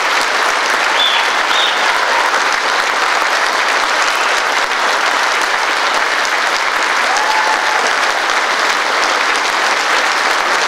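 Large indoor audience applauding steadily, with a couple of short high whistles about a second in.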